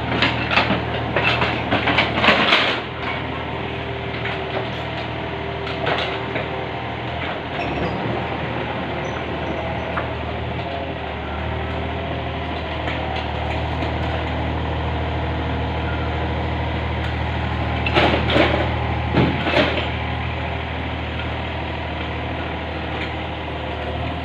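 Yanmar 35-class mini excavator's diesel engine running steadily while it loads tree roots and wood into a tipper truck. Clattering knocks of wood landing come in a cluster at the start, once about a quarter of the way through, and twice about three-quarters through.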